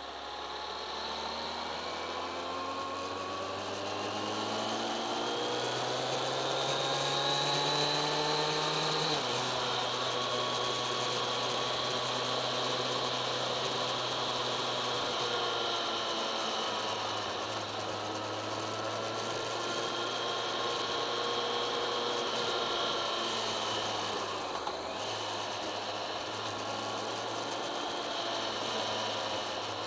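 Kawasaki ZX-10R inline-four engine revving steadily higher for about nine seconds, dropping sharply at an upshift, then running at fairly even revs, with wind rush over the bike.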